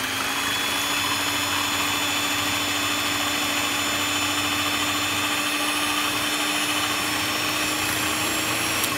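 Electric hand mixer running at a steady speed, its beaters whipping egg whites in a ceramic bowl: a steady motor whine, with a click near the end.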